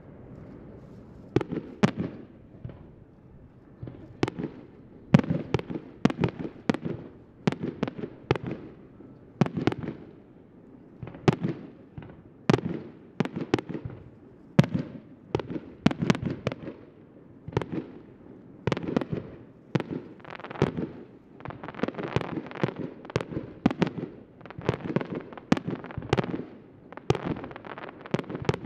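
Aerial firework shells bursting in rapid succession, a sharp bang every second or so with rumbling echoes between them, starting just over a second in.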